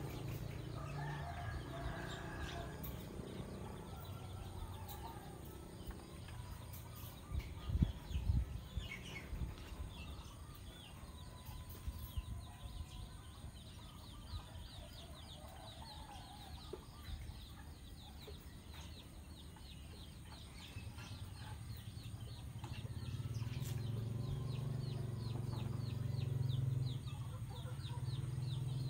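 Outdoor ambience with birds calling: a fast run of high chirps through the second half and a low steady hum that swells after about twenty seconds. A few dull thumps come about eight seconds in.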